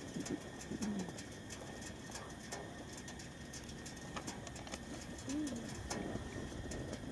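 Faint pigeon cooing: a few short, low calls spread out, one just under a second in and another about five seconds in, over quiet air.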